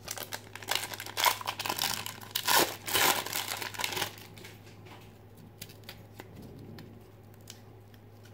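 Foil wrapper of a 1992 Fleer Ultra football card pack being torn open and crinkled for about four seconds, followed by a few faint ticks as the cards are handled.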